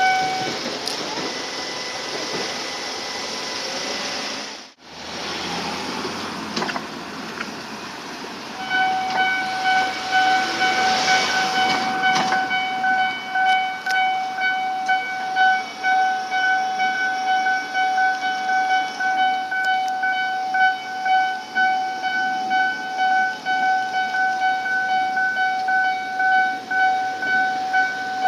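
Electronic Japanese level-crossing alarm on the Tobu Noda Line, a high-pitched repeating ding. It falls silent right at the start while an electric train runs over the crossing, then starts ringing again about nine seconds in and keeps going.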